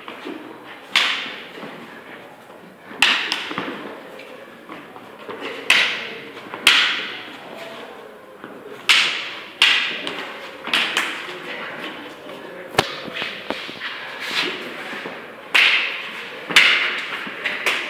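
Stick-and-knife sparring: irregular sharp clacks and thuds of sticks and training knives striking, about ten strong hits at uneven intervals, echoing in a large bare hall.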